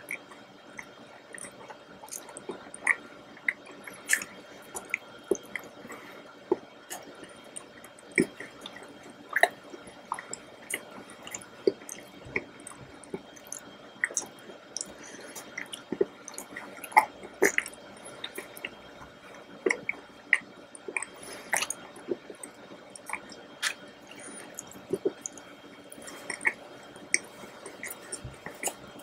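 Close-miked mouth sounds of chocolate cake being eaten: wet chewing and smacking, with short irregular clicks several times a second.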